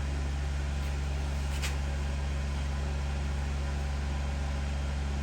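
A steady low hum, like a fan or motor running, with one short click about a second and a half in.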